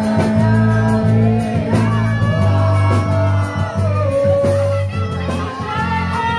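Live band music with electric bass, drums and guitar, and a man singing into a handheld microphone.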